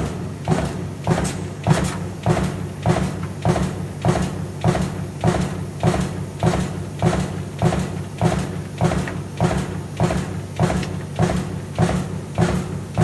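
Power press running a progressive lamination interlock die, stamping the steel strip in steady strokes a little under two a second. Each stroke is a sharp metallic impact over the press's constant low hum.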